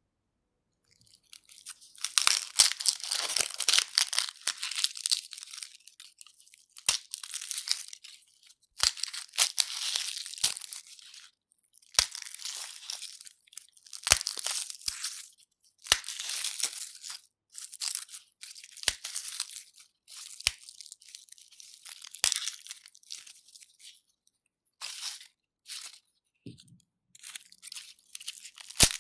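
Garlic cloves being peeled by hand and with a knife: dry, papery skins crackling and tearing in repeated bursts of a second or two, with sharp clicks between them.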